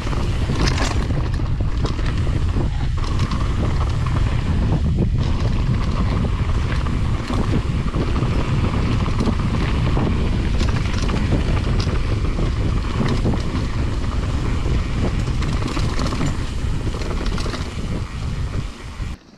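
Mountain bike ridden fast over rough trail, heard as heavy wind buffeting on the microphone with frequent short knocks and rattles from the bike. The sound cuts off abruptly just before the end.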